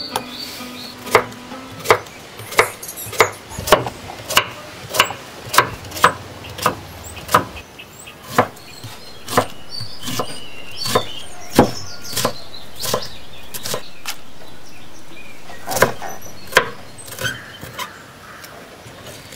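Large knife slicing and chopping a raw ash plantain bud on a wooden chopping board: a series of sharp chops, roughly two a second for the first several seconds, then more spaced out.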